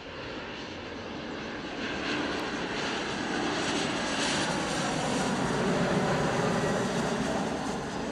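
Embraer E190 jet airliner on final approach, its twin CF34 turbofans growing louder as it nears and passes, with a falling tone as it goes by, then easing off near the end.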